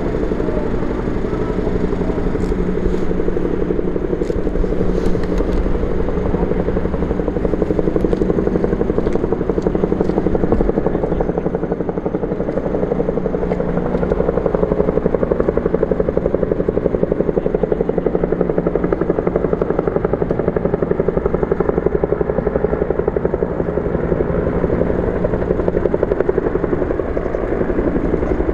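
Bell AH-1S Cobra attack helicopter running, its two-blade main rotor beating steadily and rapidly over the turbine.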